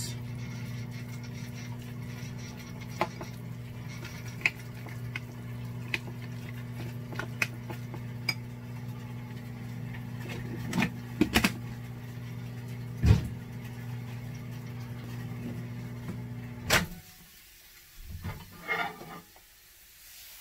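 Steady hum of a microwave oven running, with a metal spoon clinking now and then against a ceramic bowl as tuna and sour cream are stirred. Near the end the hum cuts off with a sharp click, followed by a few soft knocks.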